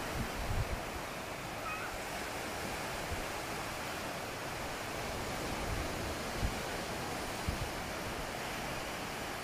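Steady rush of sea surf, with a few brief low thumps on the microphone.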